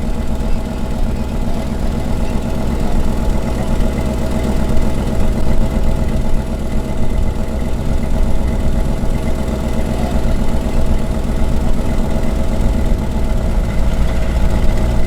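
Jeep CJ5's engine running steadily at low revs, in four-wheel-drive low range, first gear.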